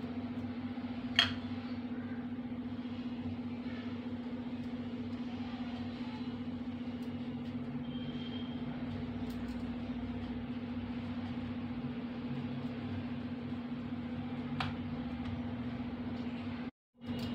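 Steady low mechanical hum, with a single sharp click about a second in.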